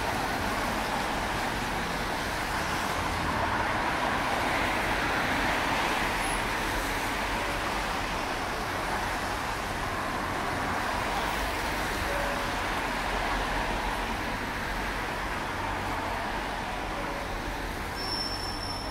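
Steady street traffic noise: cars and buses passing on a rain-wet road, an even hiss with no single event standing out.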